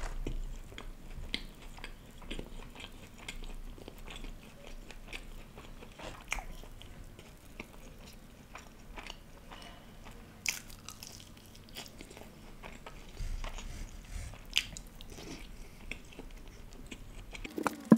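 Close-miked eating sounds: a man biting into and chewing grilled tikka pieces dipped in green chutney, with irregular wet mouth clicks and soft crunches, and a couple of louder bites in the second half.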